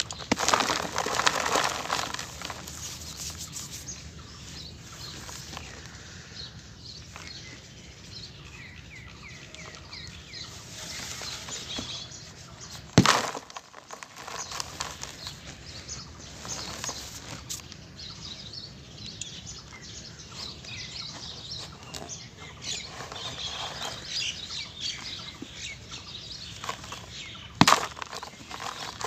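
Soft, crumbly cement being smashed and crumbled, a dry crackling crunch of breaking pieces, with two sharp smacks, one about halfway through and one near the end.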